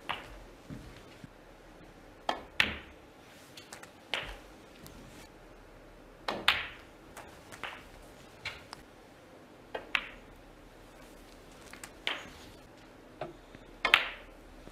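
Snooker balls clicking during a break: the cue tip striking the cue ball and the cue ball knocking into object balls. Sharp single clicks come every second or two, some in quick pairs, against a hushed room.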